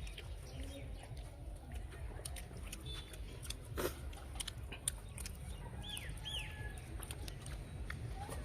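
Steady low rumble with scattered light clicks and rustles of people eating rice and curry by hand, with one louder knock about four seconds in. Two quick bird chirps come about six seconds in.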